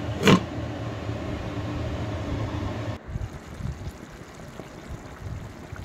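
A glass lid going onto a pan of simmering curry gives one short squeal about a third of a second in. Under it runs a steady low hum, which cuts off suddenly about three seconds in and leaves a quieter low rumble with a few soft thumps.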